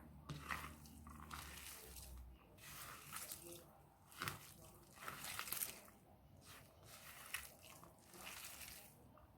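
Hands squishing and kneading raw minced meat mixed with spices in a bowl: soft, wet squelches in irregular strokes about once a second.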